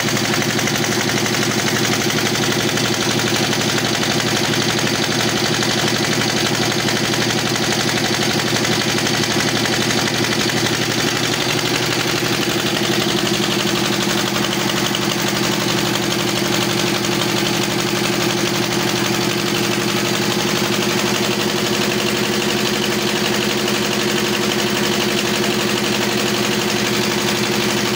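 Stationary diesel engine driving a tubewell pump by a flat belt, running steadily at constant speed with a fast, even knocking beat. About twelve seconds in, its tone shifts slightly.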